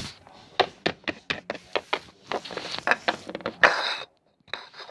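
Small plastic toy figures tapping on a hard surface as they are hopped along by hand, about a dozen quick irregular taps, then a louder brief scuffing rustle near the end.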